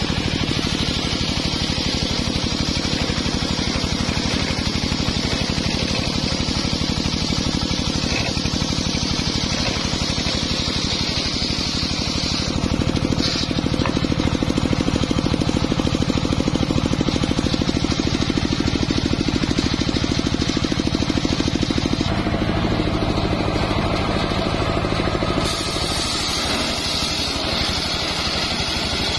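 Homemade engine-driven circular sawmill ripping lengthwise through a log of jowar (johar) wood: the engine runs steadily under load while the large blade cuts.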